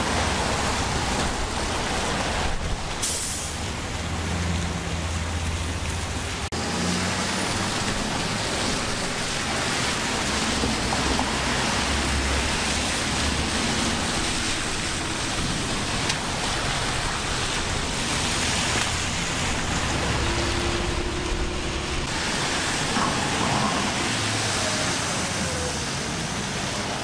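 Steady hiss of rain and car tyres on a wet road, with the low hum of passing car engines underneath.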